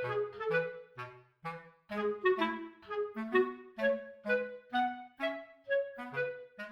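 Background music: a light, bouncy tune of short pitched notes, each starting sharply and fading quickly, over a bass line at about two notes a second.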